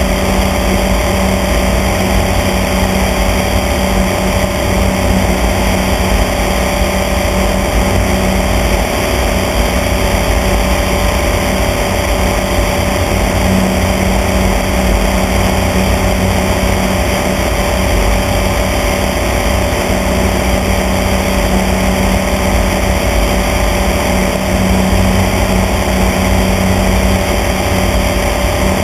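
Small airplane's engine and propeller droning steadily in cruise flight, an unchanging hum with a rushing noise of air beneath it.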